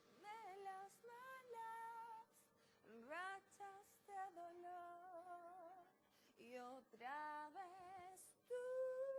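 A female voice singing alone, with no instrument heard, in short phrases with vibrato, sliding up into several notes and holding a long steady note near the end.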